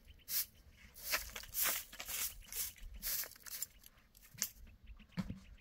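Short straw hand broom sweeping dry dirt and grit, a series of short scratchy strokes at roughly two a second.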